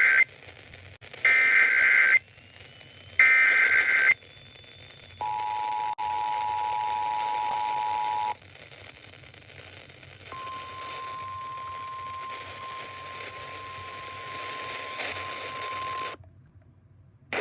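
Emergency Alert System tones for a tornado warning, heard over the radio. First come three screechy, warbling digital header bursts of about a second each. Then the two-tone attention signal sounds for about three seconds, and after a short pause a single steady alert tone holds for about six seconds before cutting off. Faint hiss runs underneath.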